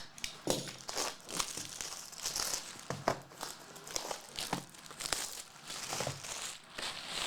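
Plastic wrapping on trading card packaging crinkling and tearing in irregular handfuls as it is pulled off by hand.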